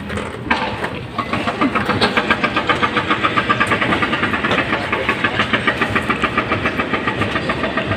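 A small engine running with a steady, rapid beat of about six pulses a second, starting about a second in.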